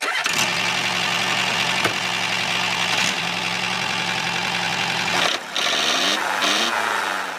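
A motor running steadily with an engine-like drone, cutting out briefly about five and a half seconds in, then picking up again with a sliding change in pitch near the end.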